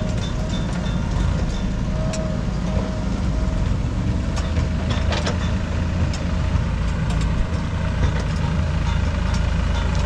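JCB 3DX backhoe loader's diesel engine working steadily as the backhoe digs soil, with a tractor's engine running close by. A few sharp knocks come through the engine noise.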